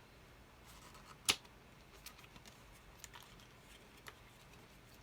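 An eyeshadow palette and its cardboard packaging being handled: one sharp click about a second in, then a few faint ticks.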